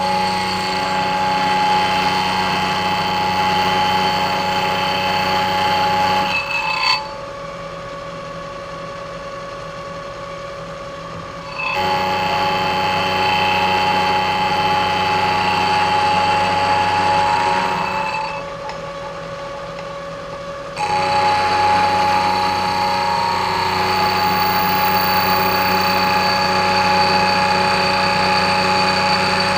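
Vertical milling machine taking a light cut in an aluminum part with a half-inch high-helix end mill: the spindle runs steadily under a loud cutting noise. The cutting noise drops away twice for a few seconds while the spindle keeps running, then comes back.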